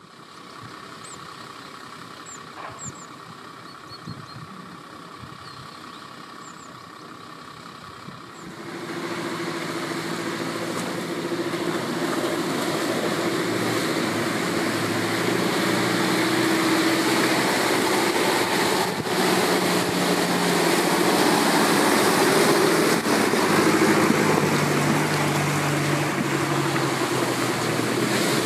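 Off-road 4x4 engine running, quiet at first with a few faint high chirps, then coming in loud about eight seconds in and building, a steady engine drone under a broad rushing noise.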